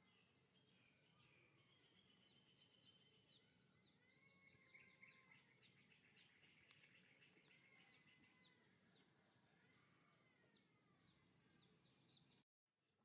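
Very faint outdoor background with birds chirping: a quick run of short downward-sweeping chirps and a few longer rising-and-falling whistled notes. The sound cuts out for a moment near the end.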